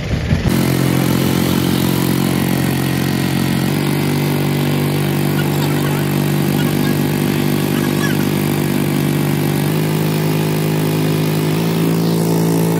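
Engine of a passenger motorboat running steadily under way, a low even drone that cuts in abruptly just after the start and shifts slightly in pitch a few times.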